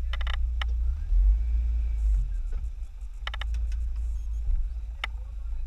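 Maruti Suzuki Gypsy's engine idling with a steady low rumble, broken by a few sharp clicks near the start, a little past three seconds in and at about five seconds.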